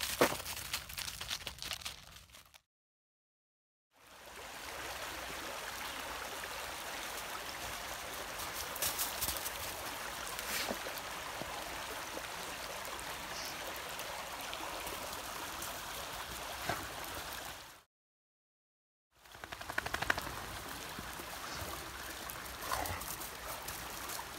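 Steady rushing of a creek, broken twice by a short dead silence, with crunching footsteps in snow and leaf litter at the start and again near the end.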